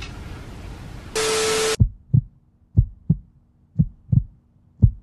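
A short burst of static with a steady beep-like tone in it, then a heartbeat sound effect: pairs of low thumps, about one pair a second.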